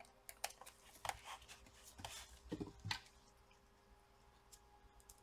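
Faint clicks, taps and scrapes of a laptop touchpad and its small plastic and metal parts being handled and seated on the palmrest, stopping about three seconds in.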